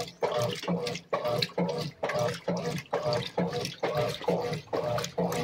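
Top-loading washing machine agitating: water sloshing in regular, evenly spaced strokes, each with a low hum from the drive under it.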